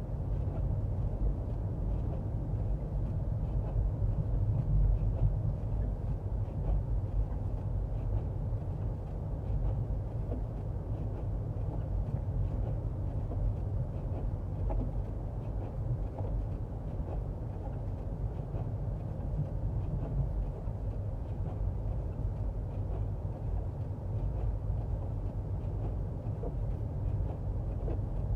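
Steady road and tyre noise inside the cabin of a front-wheel-drive Toyota Prius driving on a snowy road.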